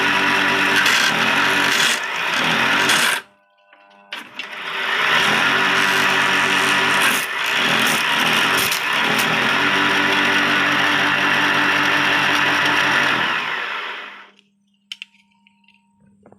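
Electric motor of a water pump converted into a wood lathe, running with a steady hum and hiss. It stops abruptly about three seconds in, starts again a second later and comes back up to speed, then winds down near the end.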